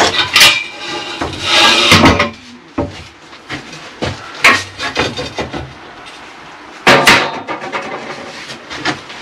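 Knocks and clanks of steel acrow props and a timber plank being shifted and set against the ceiling, with a short scrape in the first couple of seconds and the loudest hits about seven seconds in.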